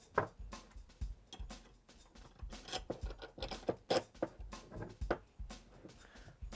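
Irregular clicks and knocks of metal bracket parts and bolts being handled and fitted together.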